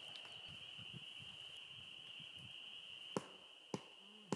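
Faint, steady high-pitched chorus of spring peepers. A few sharp clicks come in near the end, about half a second apart.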